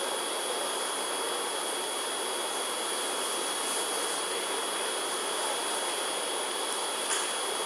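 Steady static hiss with a thin, high-pitched whine running through it, and one small click about seven seconds in.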